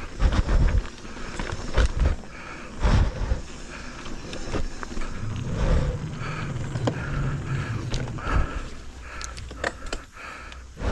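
Mountain bike being ridden along a dirt trail: steady rolling noise broken by irregular knocks and thuds as the bike goes over bumps.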